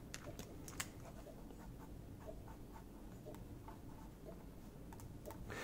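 Faint scratching and scattered light ticks of a felt-tip marker writing on paper.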